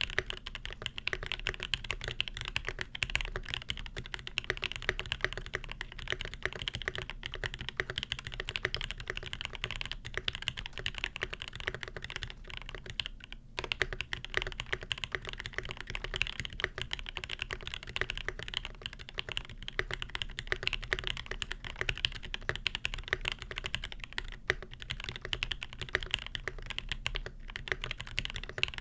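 Continuous typing on a custom Primus mechanical keyboard with lubed Alpaca linear switches on a brass plate, the keys clacking in a dense, steady stream. There is a brief pause about thirteen seconds in.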